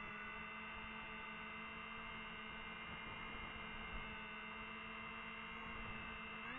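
DJI FPV drone's motors spinning at idle while it sits armed on the ground, a steady whine of several tones. Right at the end the pitch starts to climb as the throttle comes up for takeoff.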